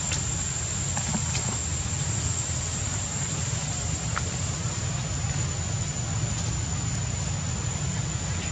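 Steady outdoor ambience: a low rumble and even hiss with a thin, steady high-pitched whine, and a few faint ticks.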